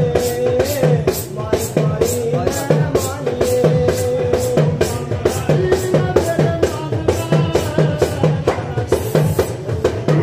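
Music with a steady drum beat, about three strokes a second, under a sustained melody line.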